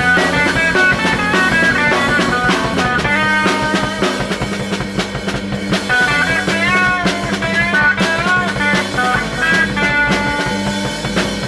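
Improvised instrumental rock jam: guitar playing a wandering melody line with bent notes over bass and a drum kit, the hi-hat ticking a steady beat.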